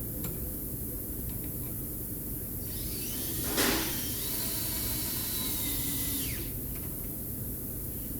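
A small power tool's motor whirring: it spins up about a third of the way in with a knock, runs at a steady high whine for about three seconds, then winds down.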